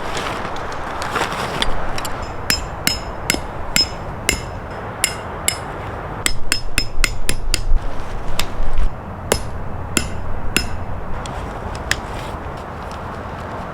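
A hammer striking metal again and again, each hit with a short ringing note, in an uneven series of roughly two blows a second that starts about two seconds in, bunches into faster, louder strokes in the middle and stops a few seconds before the end. A steady low wind rumble lies underneath.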